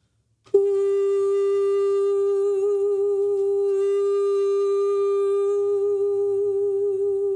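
A woman's voice holding one long sung 'goo' on G4, begun as a straight tone with no vibrato; after about two seconds a gentle vibrato appears as she eases off the push into the note.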